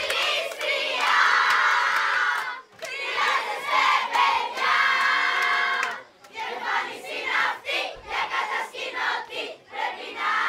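A large group of girls chanting and shouting together in unison, with two long held shouts in the first half, then shorter, choppier chanting.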